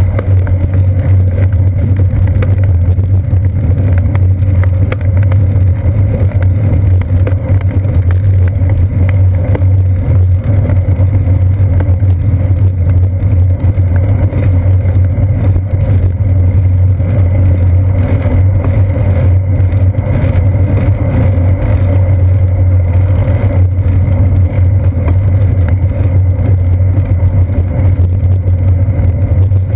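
Steady, loud rumble of a bicycle in motion, picked up through a seat-post-mounted GoPro Hero 2: wind and road vibration with a strong low hum.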